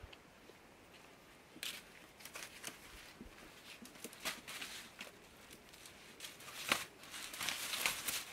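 Green maize ears in their husks rustling and crackling against a woven bamboo basket as it is tipped out. The crackles start about a second and a half in and get busier near the end.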